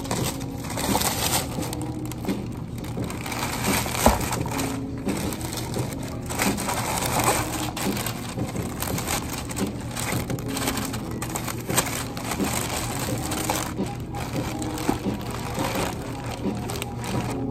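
Thin plastic bag crinkling and rustling as iced drinks in plastic cups and a takeout container are packed into it, with one sharp knock about four seconds in.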